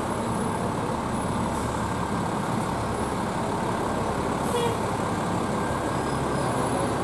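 Fire engine's diesel engine running as the pumper rolls slowly past, a steady low drone, with a short hiss about four and a half seconds in.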